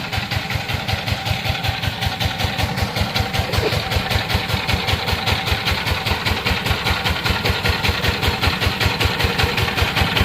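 Single-cylinder diesel engine of a Sifang power tiller running at idle, with a steady, rapid beat of firing strokes that grows a little louder about three seconds in.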